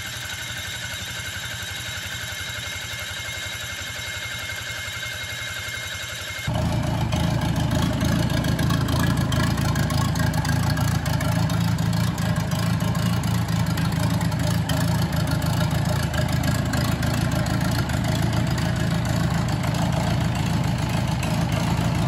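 Perkins 4.108 four-cylinder diesel running at idle just after a cold start. About six seconds in the sound jumps suddenly louder and deeper, then holds steady.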